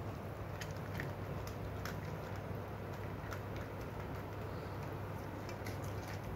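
Poodles eating from metal and ceramic bowls: scattered faint clicks and ticks of chewing and food against the bowls, over a steady low hum.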